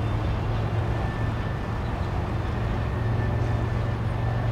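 Freight train of boxcars rolling across a stone arch railroad bridge: a steady low rumble, with a faint thin high tone joining about a second in.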